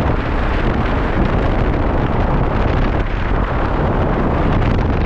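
Wind buffeting the microphone in a moving vehicle: a loud, steady rush with a heavy low rumble.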